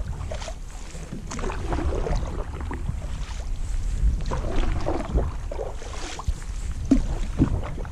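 Canoe paddle strokes in calm water: irregular gurgling, splashing and dripping as the blade goes in and comes out, over a steady low rumble.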